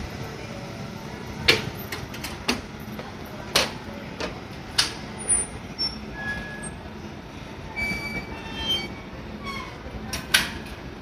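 EV-E301 series battery electric train pulling away over the station's points, its wheels giving sharp, irregularly spaced clacks as they cross rail joints and switches, about seven in all, the loudest a little after one second in and near the end.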